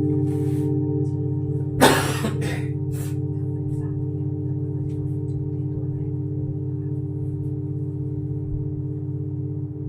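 Several tuned singing bowls ringing together as one sustained chord of steady tones, fading slowly. A brief sharp noise cuts across the ringing about two seconds in.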